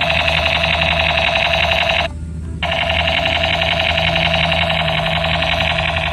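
Battery-powered black Super Force toy gun making its electronic firing sound: a fast, even buzz like a ringing bell. It breaks off for about half a second about two seconds in, then starts again.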